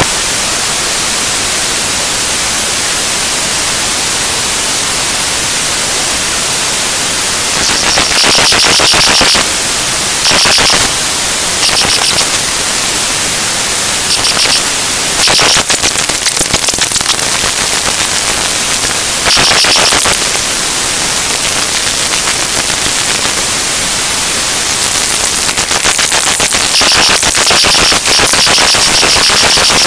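Harsh static buzz: a steady dense hiss, broken by irregular louder stretches of crackling buzz lasting about a second each, several times and more often toward the end.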